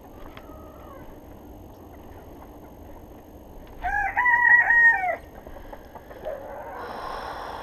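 A rooster crows once, a loud call of about a second and a half, about four seconds in.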